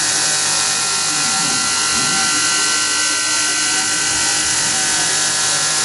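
Tormach PCNC 1100 CNC mill cutting a round part on a waterline roughing pass at 48 inches a minute. The spindle and cutter make a steady whine under the even hiss of flood coolant spraying onto the work.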